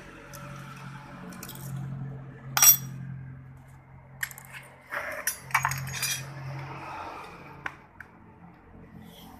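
Small metal engine parts and hand tools clinking against metal as a scooter's cylinder head is taken apart: one sharp, loud clink about two and a half seconds in, then a cluster of clinks around five to six seconds in. A steady low hum runs underneath.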